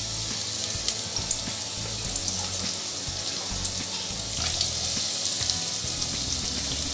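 Sliced onions sizzling in hot oil in a non-stick kadai: a steady hiss with fine crackling, a little louder from about four and a half seconds in.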